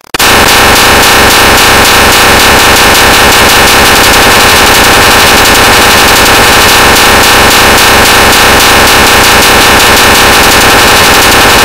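Harsh noise music: a loud, saturated wall of noise with a fast rattling pulse and steady high tones over it. It starts right after a short drop-out at the very beginning, where one track ends and the next begins.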